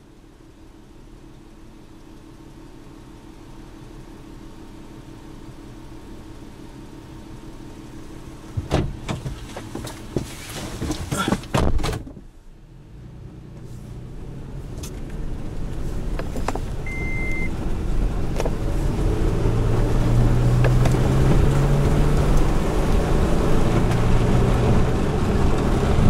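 A car's engine idles with a low steady hum, broken by a cluster of clicks and knocks about nine to twelve seconds in. The car then pulls away on a dirt road, its engine and tyre noise rising steadily, with one short beep along the way.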